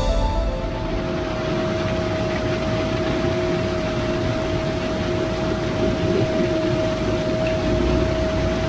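Vervaet Beet Eater 625 self-propelled six-row sugar beet harvester running while lifting beets: a steady mechanical noise with a constant whine through it.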